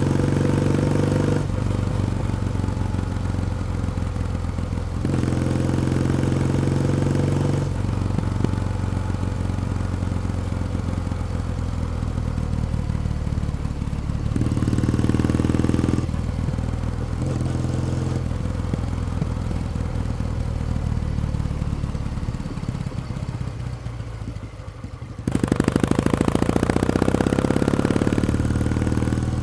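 Kawasaki W1 Special's vertical-twin engine and exhaust pulling the motorcycle along, the note shifting up and down every few seconds with the throttle. Near the end it sags for a few seconds, then comes back louder with a rising note as the bike accelerates.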